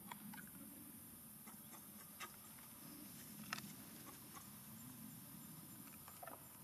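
Near silence with a few scattered light clicks and rustles, from macaques shifting about on dry leaf litter.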